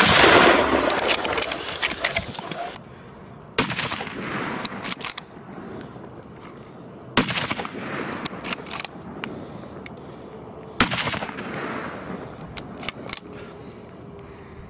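Three gunshots about three and a half seconds apart, each trailing off in a long echo, with fainter cracks between them; hunters shooting at running wild boar. Before the first shot, a loud rushing noise cuts off suddenly.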